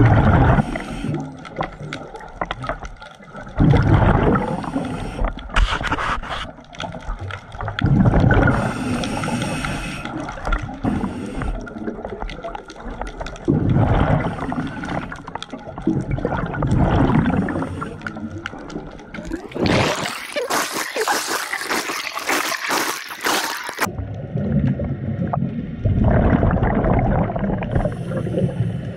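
Scuba diver's regulator breathing underwater: every few seconds an exhalation sends out a loud, rumbling gurgle of bubbles. About twenty seconds in comes a louder hissing rush lasting some four seconds.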